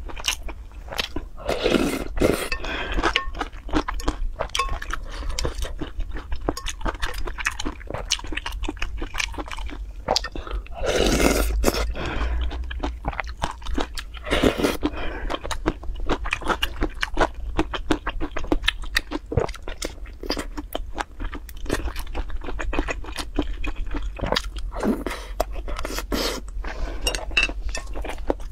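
Close-miked eating of noodle soup: wet chewing with many small clicks, and a few longer slurps, the loudest about eleven seconds in.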